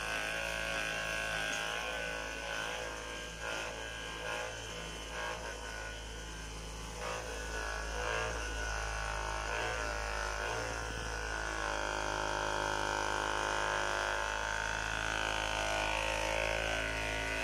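Handheld percussive massage gun running against the back and shoulder: a steady electric buzz over a low hum, its pitch shifting now and then before settling near the end.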